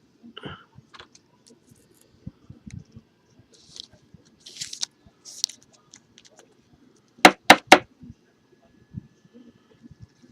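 Trading cards and their plastic packaging being handled: small taps and short rustles of wrapper or sleeve, then three sharp knocks in quick succession about seven seconds in.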